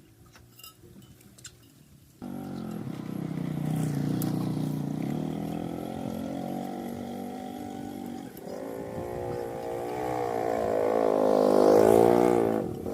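An engine starts about two seconds in and runs, then is revved up toward the end and drops back just before it ends. A few light clicks come before it starts.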